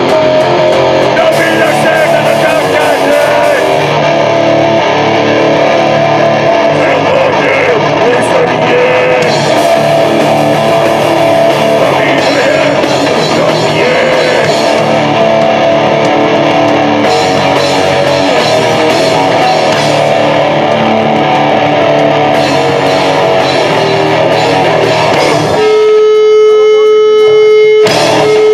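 Live band playing loud distorted rock: electric guitar, bass guitar and drums, with a vocalist singing into a microphone. Near the end the full band drops away, leaving one loud sustained note with overtones ringing on.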